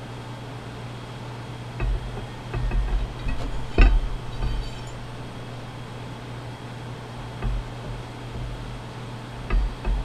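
Steel rings and other metal internal parts of a hydraulic cylinder clinking and knocking as they are handled on a wooden workbench and fitted onto the rod, with one louder clink about four seconds in that rings briefly. A steady low hum runs underneath.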